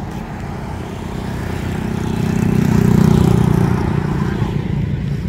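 A car driving past on the road: engine and tyre noise grow louder to a peak about three seconds in, then fade.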